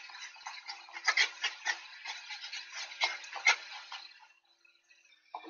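Two golden retrievers play-fighting, heard through a Furbo pet camera's microphone: a busy run of scuffling clicks and knocks from paws and bodies, with several louder knocks. It falls quiet for about a second near the end.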